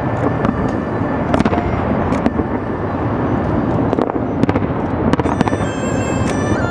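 Aerial fireworks shells bursting in quick succession: a dense run of bangs and crackles over a continuous low rumble.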